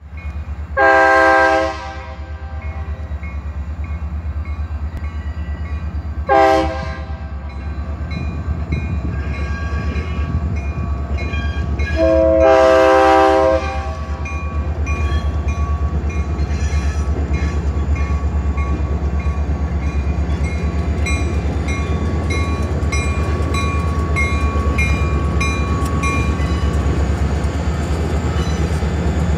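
Diesel freight locomotives sounding their horn for a grade crossing: a long blast, a short one and another long one. A crossing bell dings steadily all the while, and a low diesel rumble grows louder from about halfway through as the locomotives reach and roll through the crossing.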